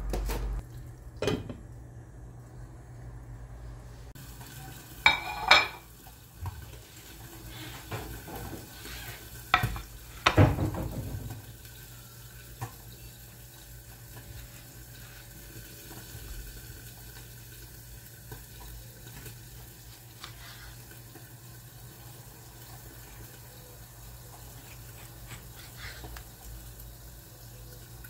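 Several sharp clinks and knocks of household objects being handled, the loudest about five and ten seconds in, followed by a faint steady hiss.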